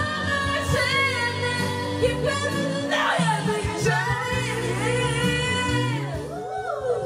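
A pop song: a singing voice carrying a melody over an instrumental backing track.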